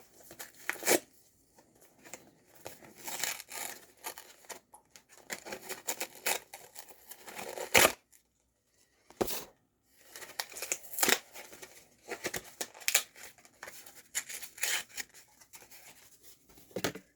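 A package being opened by hand: packaging tearing and rustling in short, irregular strokes, with a pause of about two seconds midway.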